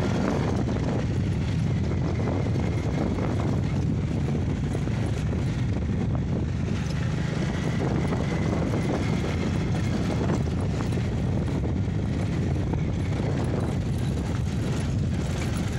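Steady rumble of a vehicle on the move, its engine and road noise mixed with wind buffeting the microphone.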